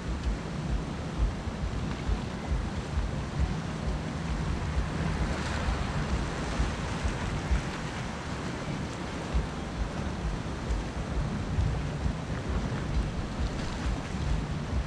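Sea surf washing against a rocky shore, with wind buffeting the microphone in gusty low rumbles. A wave washes in louder about five seconds in.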